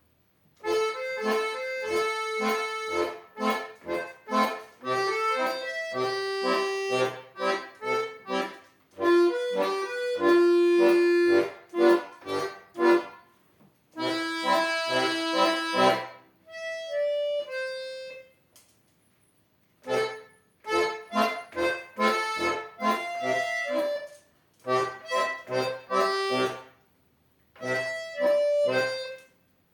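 Solo accordion playing a lively piece in short, detached notes, broken by brief pauses. Near the middle comes a softer, higher passage.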